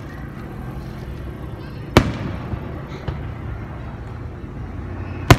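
Fireworks going off close by: two sharp, loud bangs about three seconds apart, over a steady low background rumble.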